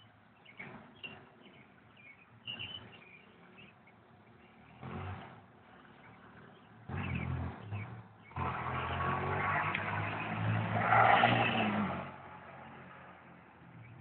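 A motor vehicle passing by: a low engine and road noise that swells over several seconds, loudest about eleven seconds in, then fades.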